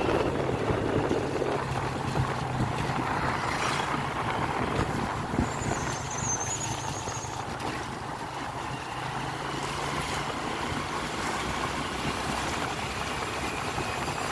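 Small Honda motorcycle's engine running at a steady cruising pace, a low even hum under a constant rushing noise of wind and tyres on the wet road.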